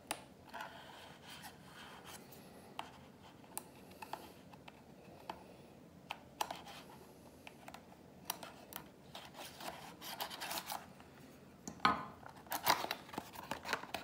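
A pocket knife slitting the seal on a small cardboard SSD box: scattered light clicks and short scrapes of the blade, then louder rustling and tearing of the cardboard near the end as the box is pulled open.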